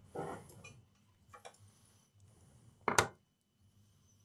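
A short rustle, then a few sharp clicks of handling on the workbench, the loudest single click about three seconds in.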